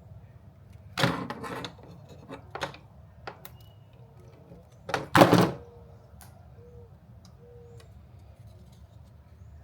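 Handling noises from hand work on car wiring. A rustling clunk comes about a second in, then a few small knocks and clicks, and a louder clunk about five seconds in.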